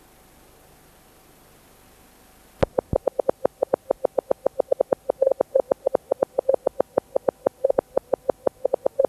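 Low tape hiss, then a click about two and a half seconds in and a rapid run of short electronic beeps at one pitch, about seven a second, some bunched closer together than others.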